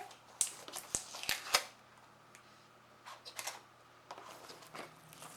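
Taped cardboard product box being opened by hand: a few sharp clicks and crackles in the first second and a half, then quieter rustling of the packaging.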